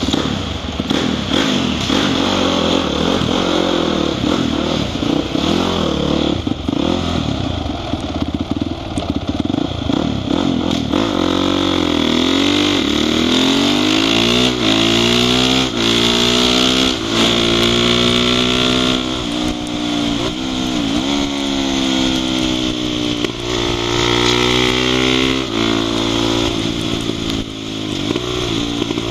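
Honda CRF450 supermoto's single-cylinder four-stroke engine heard from on the bike. It runs unevenly at low revs for the first ten seconds or so, then revs hard with the pitch climbing and dropping back several times as it shifts up through the gears.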